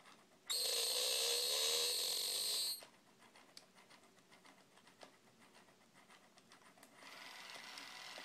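Circuit-bent Furby's speaker blurting a loud burst of distorted electronic noise with falling tones for about two seconds. It then goes quiet apart from faint clicks, and near the end settles into a steady electronic drone.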